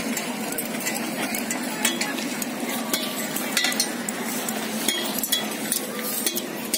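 Ice-chair sled runners scraping steadily across lake ice, with many sharp irregular clicks and clinks as the spiked push poles strike the ice.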